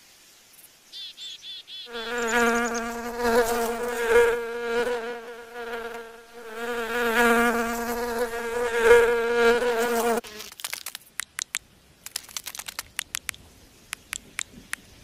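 Housefly buzzing in flight, a loud hum with a wavering pitch that swells and fades for about eight seconds and then stops suddenly. A run of small sharp clicks follows.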